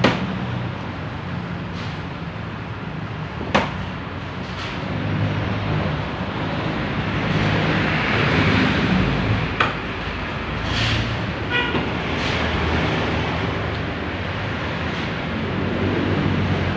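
Several sharp knocks and clicks of plastic trim and parts being handled in a car's engine bay during wiper cowl removal, over a steady low hum and background noise.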